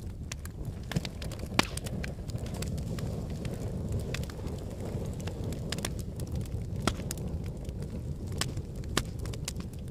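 Wood fire burning in a fireplace: a steady low rumble of flames with scattered sharp crackles and pops, the loudest about one and a half seconds in and again near seven seconds.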